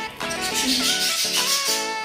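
Background music: a tune of short, evenly paced notes over a high shaker rhythm.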